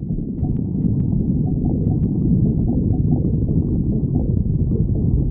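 Stomach growling and gurgling: a continuous low rumble with short, higher-pitched squeaks scattered through it.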